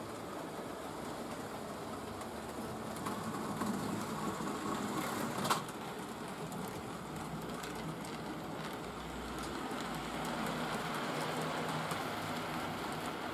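Model railway freight train of loaded coal wagons running over the track and points, a steady rumble of wheels with small clicks at rail joints and one sharper click about five and a half seconds in.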